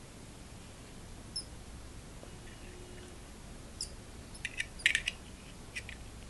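Small metallic clicks and scrapes of pliers picking at the cotton packing inside a Zippo lighter's steel insert. A few sharp ticks, most of them bunched together in the second half.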